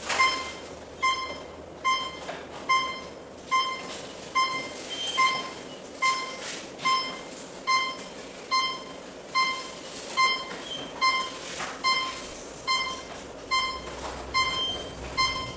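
An electronic beeper sounding one short, high beep a little more than once a second, evenly and without change, with a few faint clicks of handling between beeps.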